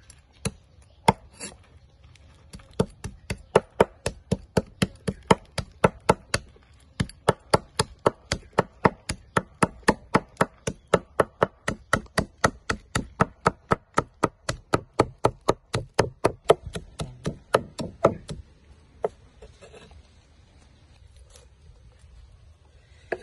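Heavy steel cleaver chopping frogs, bones and all, on a thick wooden chopping block. A few single strokes, then a fast, steady run of about three to four chops a second that stops a few seconds before the end.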